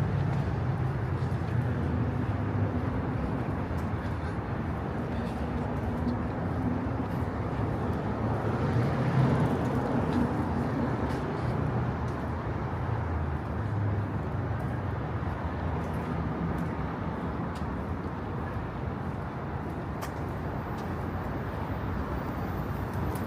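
Steady low rumble of road traffic in an outdoor city soundscape, swelling a little about nine seconds in.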